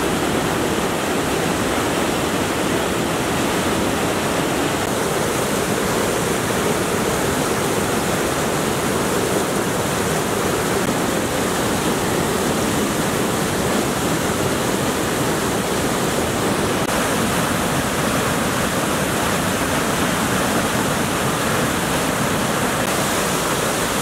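Steady, dense rush of white water from the Tomara Waterfall and its torrent tumbling over rocks. The flow is running high with spring snowmelt.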